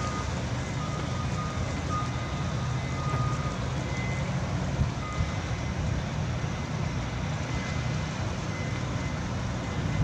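Construction-site machinery rumbling steadily while a reversing alarm beeps on and off. A lower-pitched beeping sounds in the first few seconds, and a higher-pitched beeping in the second half.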